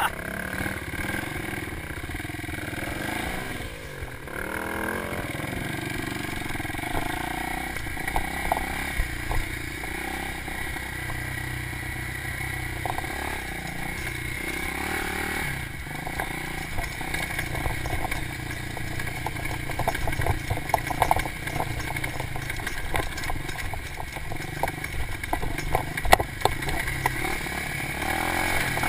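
Dirt bike engine running while the bike is ridden over a rough grassy trail, its pitch rising and falling with the throttle, with short clattering knocks from the bike over bumps, more frequent in the second half.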